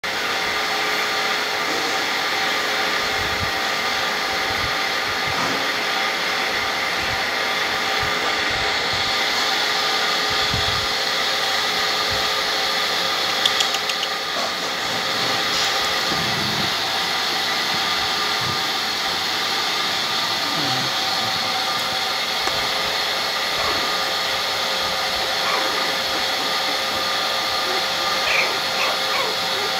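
Steady whirring of an electric motor, with a constant hum of several tones over a hiss, and a brief tap about halfway through.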